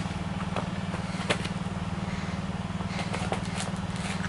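An engine running at a steady idle, an even low pulsing, with a few faint clicks over it.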